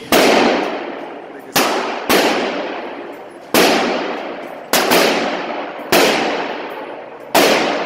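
About eight gunshots at uneven intervals, fired from other lanes of an indoor shooting range. Each shot is a sharp crack followed by a long echoing decay off the range walls.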